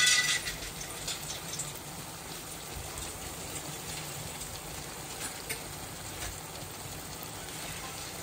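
Keema curry cooking in an aluminium pot on the hob, a steady hiss of simmering liquid under a layer of cubed potatoes. It opens with a brief clatter, then runs evenly with a few faint ticks.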